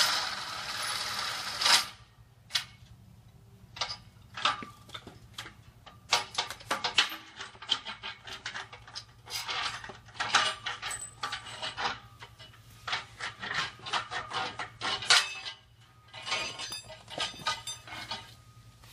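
A loud rushing noise that cuts off about two seconds in, then scattered metallic clinks and rattles in irregular clusters: threaded rods and their fittings being unfastened and handled along the bottom edge of a fabric side panel.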